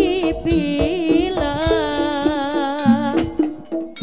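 Live jaranan gamelan music from East Java: a long held melody with wavering pitch rides over steady gong-chime tones and sharp hand-drum strokes. The music eases briefly near the end.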